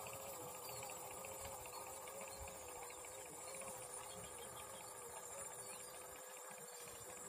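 Faint outdoor ambience: insects chirring steadily at a high pitch, over a low steady hum that wavers slightly in pitch.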